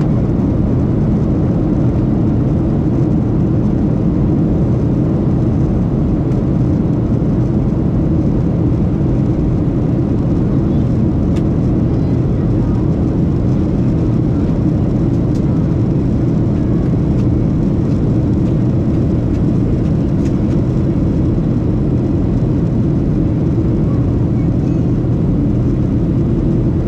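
Steady cabin roar of a Boeing 737-700 in flight, heard from a window seat beside the wing: the CFM56-7B engines and rushing airflow as an even, low noise that does not change.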